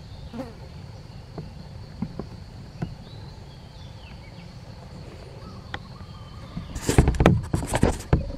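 Steady insect buzzing with a thin high whine, a few faint chirps and light clicks. Near the end comes a loud burst of close rustling and crackling lasting about a second and a half.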